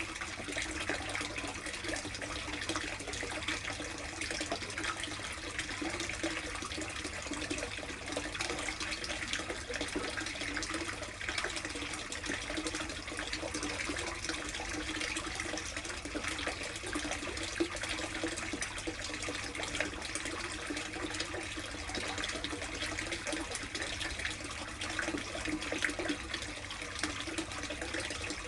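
Running water splashing steadily into a koi tub, an even trickling and gushing that does not stop or change.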